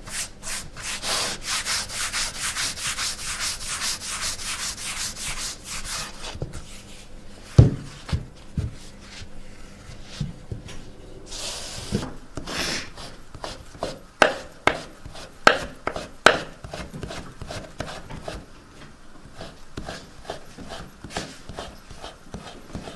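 Wooden rolling pin rolling out farro pasta dough on a wooden board in quick, even rubbing strokes, then a single thump. A knife then cuts the rolled-up sheet into tagliatelle, making a run of sharp taps on the board.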